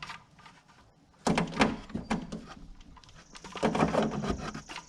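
A series of knocks and clatter from objects being handled, in two bunches with a quiet gap between them.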